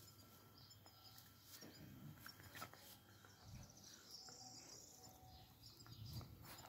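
Near silence: faint outdoor ambience with a few soft clicks and a brief faint high chirp about four seconds in.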